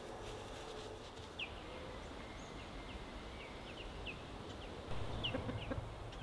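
Free-ranging chickens clucking in a farmyard, heard as scattered short high chirps over quiet outdoor background, with a low rumble joining about five seconds in.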